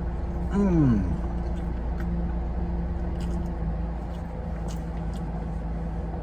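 Steady low hum of an idling car engine heard from inside the vehicle, with a short falling voice sound about half a second in and a few faint clicks later on.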